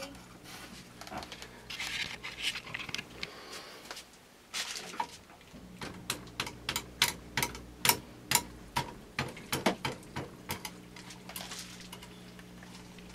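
Short hisses of alcohol being sprayed into a rifle bore during cleaning, followed by a run of light, sharp clicks and taps, about two or three a second, from handling the cleaning gear, and another brief hiss near the end.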